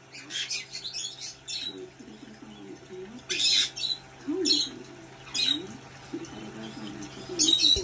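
Pet parrots squawking in short harsh bursts, five or six in all, the loudest about three and a half seconds in and near the end, over a steady low hum.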